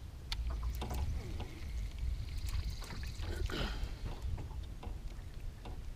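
Spinning reel being cranked as a hooked bass is reeled in: a steady high whirr for about a second and a half near the middle, with scattered small clicks over a low rumble.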